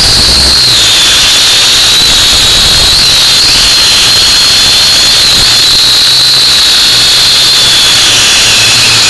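Small camera drone's motors and propellers heard up close from its own onboard camera: a loud, steady high-pitched whine over a rushing hiss. The pitch wavers slightly and dips lower near the end.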